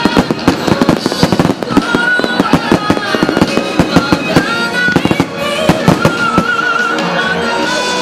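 A rapid barrage of aerial firework shells bursting, several bangs a second, thinning out in the last few seconds. Music with a held, wavering melody plays over it.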